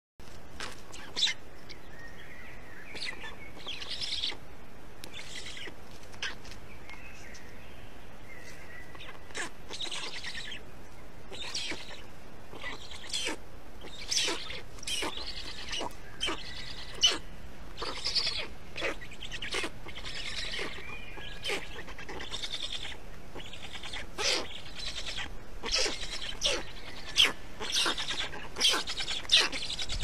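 Black stork chicks calling at the nest, a stream of short, sharp chirps that come thicker and louder toward the end as the adult feeds them, with a faint high whistle a few seconds in.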